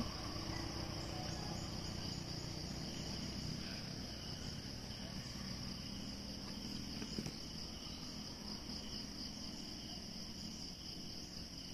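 Steady high-pitched chirring of an insect chorus, unbroken throughout.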